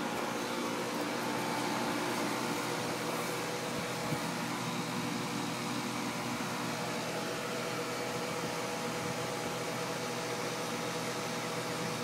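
Outdoor heat pump unit running in cooling mode: a steady hum with several fixed tones under the even rush of its condenser fan.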